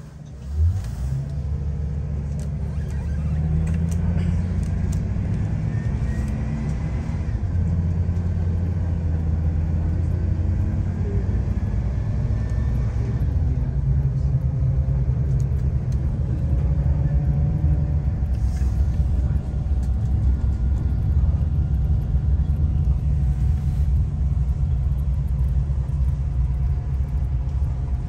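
Tour bus engine running as the bus drives along. It comes up sharply about half a second in, then holds a steady low drone.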